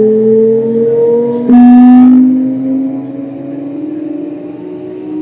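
Hitachi GTO-VVVF inverter and traction motors of a Kintetsu 1259 series electric train whining as it accelerates. Several tones rise slowly together and jump to a new pitch about a second and a half in, the pulse mode changing, then the whine grows quieter.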